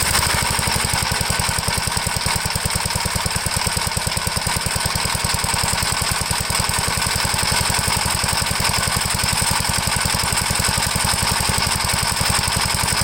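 Gravely tractor engine running steadily with a fast, even firing beat, just after being started on its new foot starter switch.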